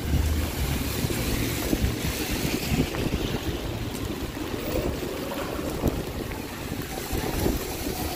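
Rainy city street noise: wind rumbling on the microphone over a steady wash of noise from the wet street and traffic.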